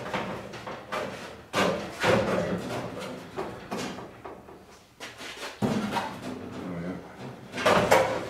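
Knocks, bumps and scraping of a fiberglass Classic Mini flip front being handled and shifted on the floor, irregular, with sharper knocks about a second and a half in and near the end.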